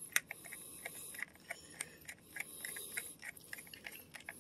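Screwdriver turning a screw down into a motorcycle battery terminal: a faint run of small, irregular clicks, several a second.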